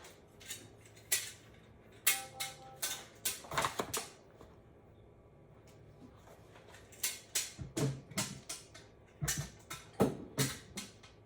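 Irregular knocks and clinks of printer parts and tools being handled during assembly, with a short steady ringing tone about two seconds in.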